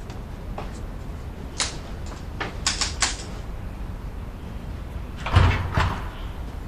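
A few light clicks and knocks, then a door opening with a louder low thud a little past five seconds in.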